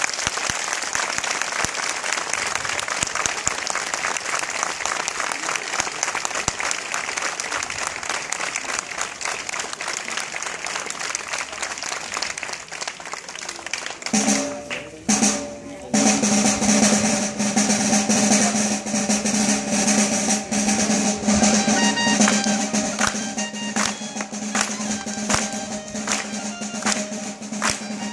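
A long snare drum roll mixed with crowd applause, then, about fourteen seconds in, a pipe (pito) strikes up a dance tune on steady held notes, with the drum beating along.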